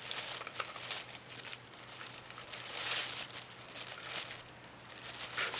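Thin plastic shopping bag crinkling and rustling in irregular bursts as a dog roots through it with its head inside, pulling at broccoli.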